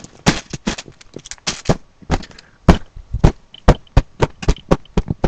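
Irregular sharp clicks and knocks, about four a second, close to the microphone: handling noise.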